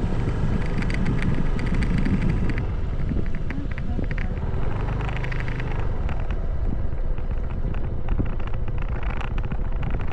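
Riding a motor scooter: wind buffets the microphone, and the scooter's small engine and its tyres on the road make a steady rumble and hiss underneath, with scattered light clicks.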